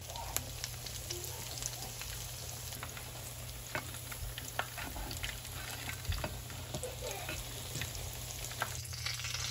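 Breaded pike fish cakes frying in hot vegetable oil: a steady sizzle with scattered crackles and pops.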